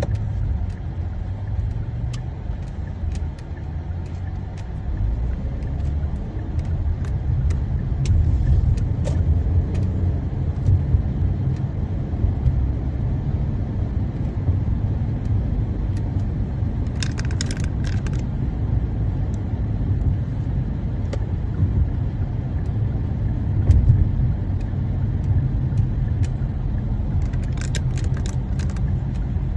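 Steady low rumble of a moving car heard from inside the cabin: engine and tyre road noise. Brief clusters of light clicks or rattles come about two-thirds of the way through and again near the end.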